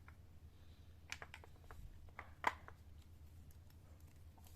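Faint scattered clicks and taps of small hard objects being handled, with a sharper tap about two and a half seconds in, over a low steady hum.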